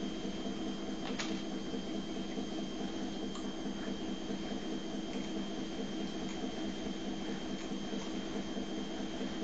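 Steady low hum with a thin, constant high-pitched whine, like a small motor or fan running, with a faint click about a second in.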